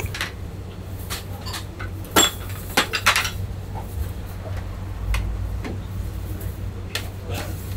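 Ceramic plates and bowls clinking and knocking as dishes are set out and food is plated, with a cluster of sharp clinks two to three seconds in, over a steady low hum.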